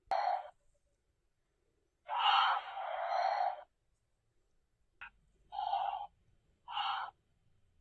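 Snoring: a series of high, breathy snores, one short at the start, a long drawn one about two seconds in, then three short ones close together near the end.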